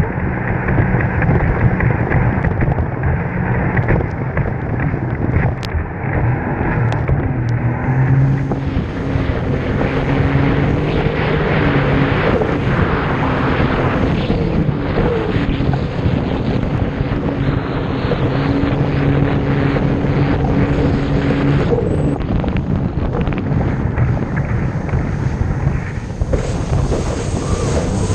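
Jet ski engine running steadily at speed, a continuous drone, with wind buffeting the microphone.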